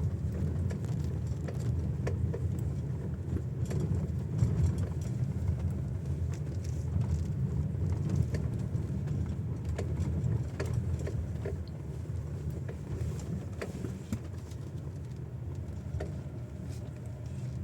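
GAC GS8 II cabin over rough road: a steady low road rumble with irregular, clear, ringing knocks from under the steering wheel. The knocks come as the car's weight rolls from side to side over the bumps.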